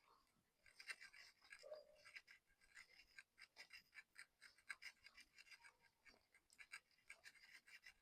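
Faint, irregular scratching and rubbing of a cloth being wiped along a KTM Duke 390's drive chain to clear off chain cleaner, a quick run of short scrapes starting about a second in.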